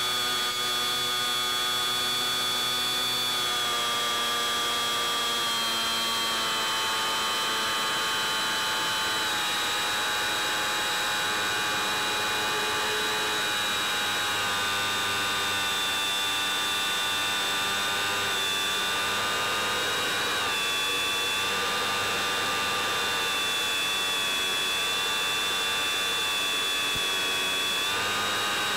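Bixler 3's electric motor and pusher propeller whining steadily, heard from on board the plane, its pitch stepping down or up a little several times as the throttle changes; a steady hiss runs underneath.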